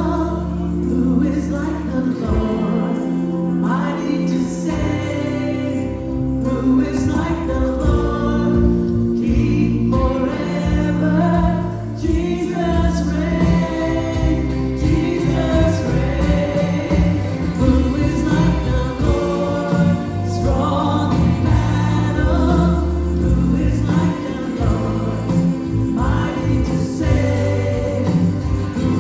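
Gospel choir singing with band accompaniment: voices over bass and keyboard.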